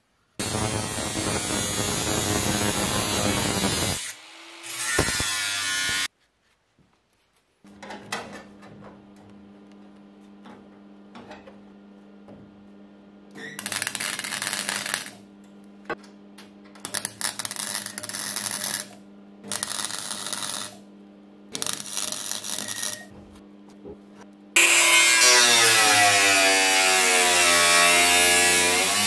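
A power tool runs loudly for the first few seconds. After a short gap, several short bursts of MIG welding, each a second or two long, sound over a steady hum. Near the end an angle grinder cuts into the welded steel arch panel, loud, with its pitch falling.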